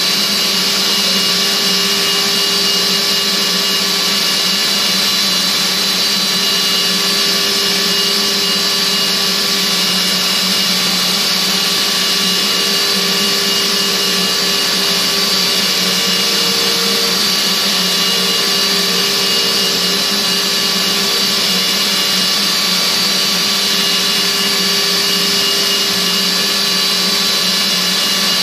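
OKK HM-800S horizontal machining center spindle turning a small cutting tool into a metal workpiece. It makes a steady, unchanging machining whine: several constant tones over a hiss.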